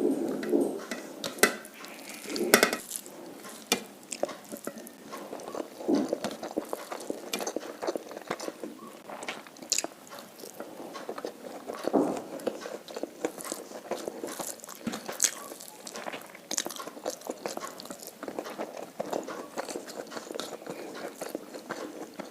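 Close-miked eating of a Bengali rice-and-curry meal: chewing and biting with wet mouth sounds and irregular clicks.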